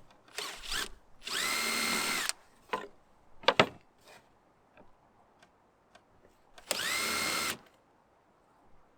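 Power drill running in two short bursts of about a second each, driving screws into wood. Each time the motor whine rises quickly to speed and then holds steady before stopping. Short knocks and clicks come between the runs, the sharpest about halfway through.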